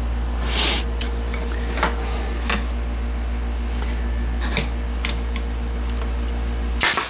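A machine's steady low hum that cuts off suddenly near the end, with a short burst of noise as it stops. Scattered light clicks and knocks of wood pieces being handled run over it.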